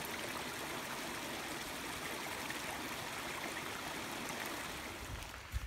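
Small woodland stream running over a little rocky drop: a steady, even babble of water.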